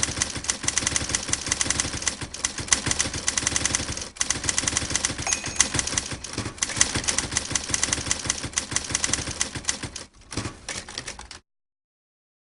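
Typewriter being typed on, a fast run of sharp key strikes with a couple of brief pauses, cutting off abruptly near the end.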